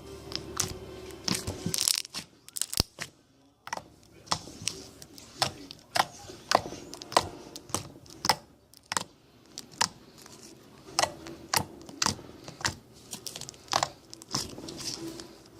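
Hands squishing and poking a soft, stretchy fluffy slime, with irregular sharp clicks and pops of trapped air about one to three a second.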